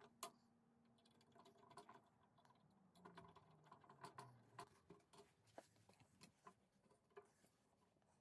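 Faint, scattered clicks and light metal taps from fitting a small steel bracket to a steel frame and turning a screw in with a hand screwdriver; one sharper click just after the start, then a run of small clicks.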